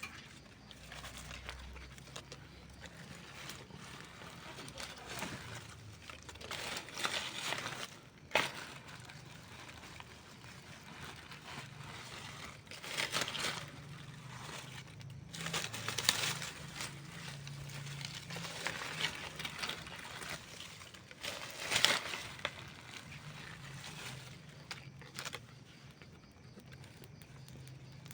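Wood campfire crackling: irregular sharp pops and snaps over a soft hiss of burning, with louder flurries of crackling coming and going.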